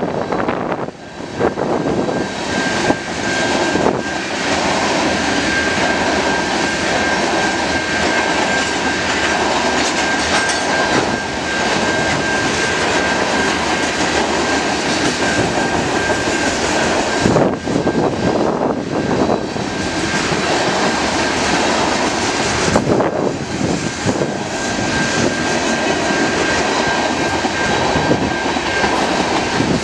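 Freight train tank cars and hoppers rolling past close by: a steady, loud rumble and clatter of steel wheels on the rails, with a thin steady high tone held through most of it.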